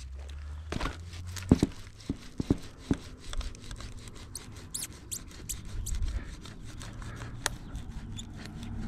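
Cold Steel Pro Flight Sport throwing knife being worked loose from a plywood target: a run of sharp creaks and cracks of wood gripping the steel blade, loudest about a second and a half in, then fainter ticks. The blade is stuck deep in the board, over half an inch in.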